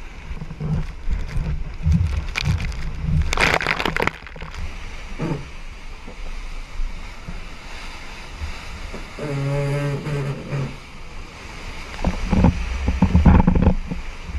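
Wind buffeting the microphone and rushing sea water aboard a sailing boat under way, coming in surges. A short pitched sound, a held tone with several overtones, sounds a little past the middle.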